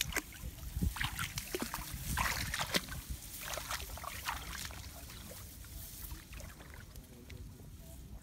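Shallow muddy paddy water splashing and sloshing as hands grope through it among grass stems, feeling for fish. A busy run of splashes in the first few seconds, then only a few scattered ones.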